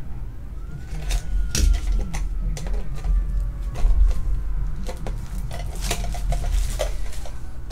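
Plastic shrink wrap being torn and peeled off a small metal tin by hand: intermittent crinkling and crackling with scattered clicks, over a steady low hum.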